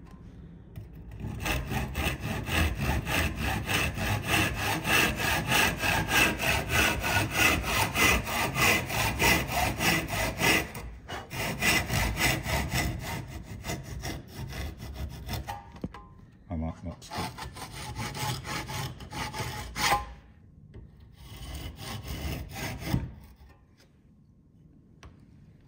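Tenon saw cutting through timber with steady back-and-forth strokes, as the waste is sawn out of a halving joint. The strokes pause briefly about halfway, resume in shorter bursts, and stop a few seconds before the end as the cut goes through.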